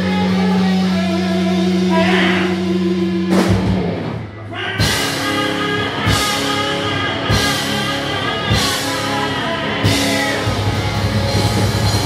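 Live rock band playing electric guitar and drum kit. A held chord breaks off about three and a half seconds in, then the band comes back in with accented hits and cymbal crashes roughly every second and a half.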